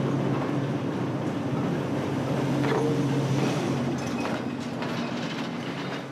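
Old diesel locomotive running as it pulls a train in past the platform, with a steady engine hum over rail noise; the engine note fades about four seconds in.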